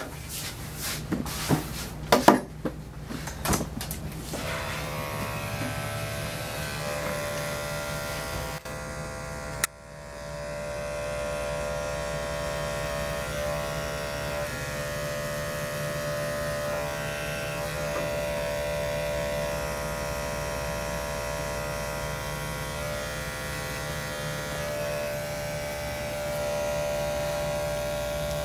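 Electric dog grooming clippers running with a steady hum, trimming the fur on a puppy's paw pads. A few clicks and knocks come first, and the clipper hum starts about four seconds in, with a brief drop about ten seconds in.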